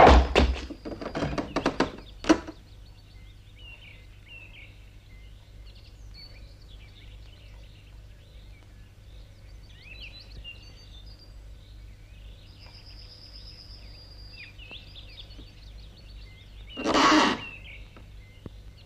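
A few wooden knocks and clatters of falling boards and debris, then a long quiet stretch with birds chirping, and a short loud burst of noise near the end.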